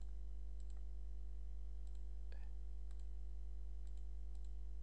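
Several soft computer-mouse button clicks, spaced irregularly, as lines are picked one by one in drawing software. A steady low electrical hum runs underneath.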